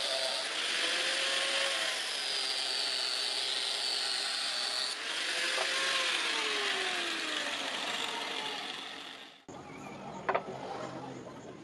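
Angle grinder with an abrasive disc grinding a steel knife blade: a loud hiss of abrasive on metal over a motor whine whose pitch slides as the load changes. It cuts off suddenly about nine seconds in, leaving quieter handling noise with a few sharp knocks.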